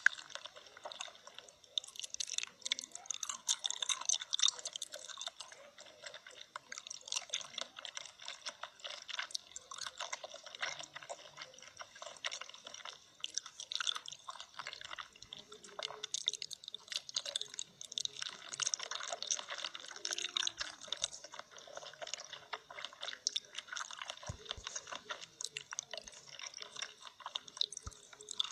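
Rapid, dense crackling and clicking close to the microphone, continuing with only brief pauses.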